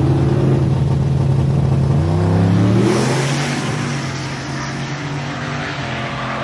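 Drag-racing pickup trucks' engines running steadily at the start line, then revving up with a rising pitch about two seconds in as they launch, and fading as they pull away down the strip.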